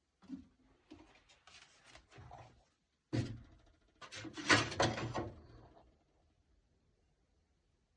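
Medicine cabinet being opened and handled: a series of knocks and rustles, with a sharp knock about three seconds in and a denser clattering a second later.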